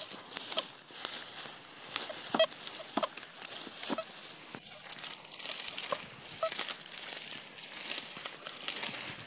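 Metal detector search coil sweeping through dry, long crop stubble: the stalks crackle and rustle about once a second with each swing and step, over a steady high hiss.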